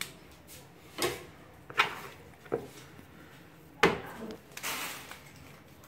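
Hands pressing and shaping soft dough around a boiled egg over a metal bowl, with a handful of sharp knocks and taps, the loudest a little before four seconds in, and a brief rubbing sound soon after.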